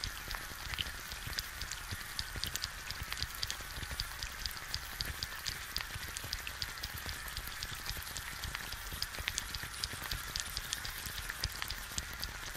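Egg frying in a pan: a steady sizzle with dense, irregular crackling pops as bubbles burst in the white.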